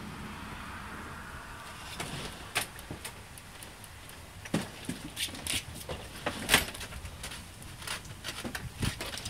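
A steady hum fades out over the first two seconds, then irregular sharp taps and clicks come at uneven intervals, the loudest about six and a half seconds in.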